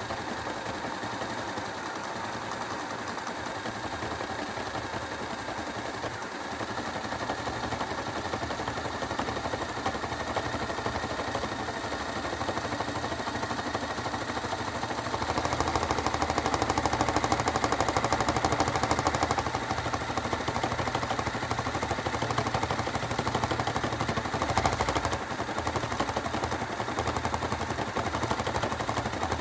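Hoover washing machine on a rinse and spin cycle with an RC car tumbling in the drum, making a continuous rapid clatter that is louder for a few seconds about halfway through.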